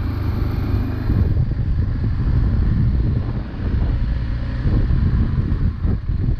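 BMW GS 650 motorcycle under way, a steady low rumble of engine and ride noise mixed with wind buffeting the microphone.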